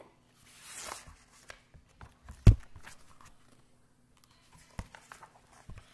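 Paper rustle of a book page being handled and turned, then a single sharp thump about two and a half seconds in, followed by a couple of faint taps.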